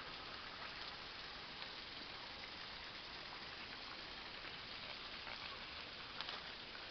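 Steady hiss of water running in a small forest stream, with a few faint clicks over it, the clearest about six seconds in.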